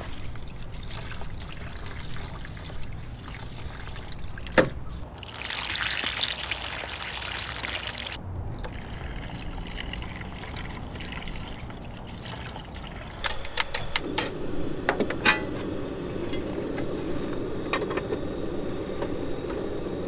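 Liquid being poured for about three seconds, starting about five seconds in, just after a sharp knock. Small clicks and knocks come and go around it.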